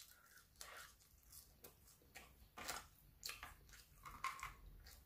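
Faint chewing of McDonald's French fries close to the microphone: soft, irregular mouth sounds a fraction of a second apart.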